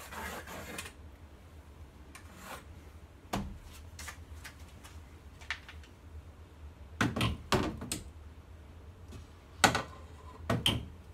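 A pencil scratches a plumb line on drywall along a long level, then the level is handled, giving scattered knocks and clicks, the sharpest near the end. A low steady hum runs underneath.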